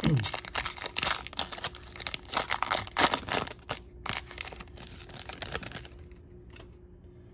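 A Topps baseball card pack wrapper being torn open and crinkled: a dense run of crackles and rustles that thins to a few scattered ticks after about four seconds.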